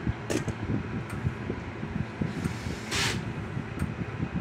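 Hands handling wire leads and small parts on a workbench: scattered low knocks and rubbing, with a short rustle about three seconds in.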